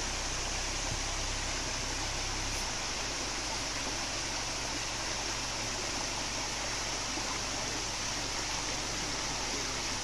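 Shallow rocky forest stream running, a steady even rush of water.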